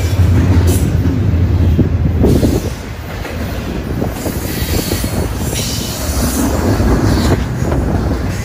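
Double-stack intermodal container train rolling past close by: the steady rumble and rattle of its wheels and cars, loudest in the first two or three seconds.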